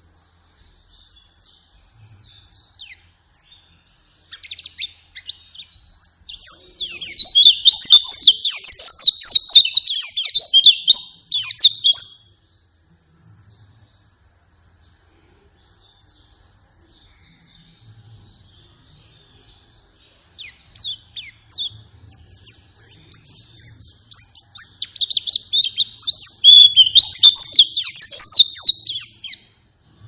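White-eyes (pleci) singing: two long bouts of fast, high twittering song, one starting about six seconds in and another about twenty-two seconds in, with softer scattered chirps in between.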